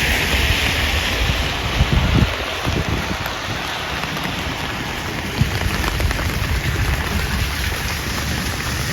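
Steady rain on a wet street, with a hiss of tyres on wet pavement that fades over the first few seconds. A few dull low thumps come about two seconds in.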